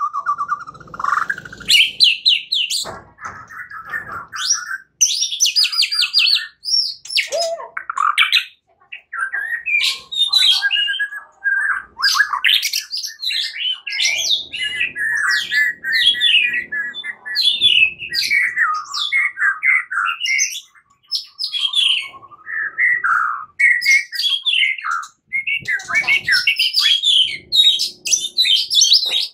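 White-rumped shama (murai batu) singing a long, varied song of loud whistles, trills and rapid chattering phrases, with brief pauses between phrases. It is the combative, fighting-style song used as a lure to provoke other shamas into singing.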